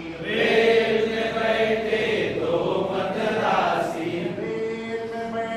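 A group of men singing in unison, a chant-like song with long held notes.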